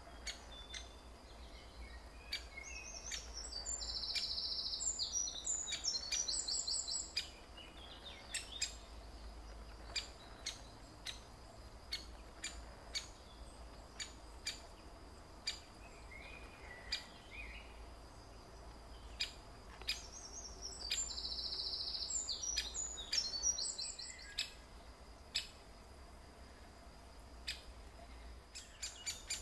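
High, rapid bird calls in two bursts, one a few seconds in and another about two-thirds of the way through, with scattered sharp ticks between them over a faint steady high tone.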